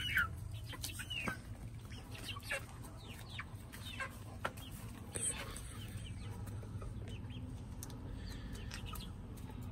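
Two-month-old chickens calling, with short falling chirps scattered through.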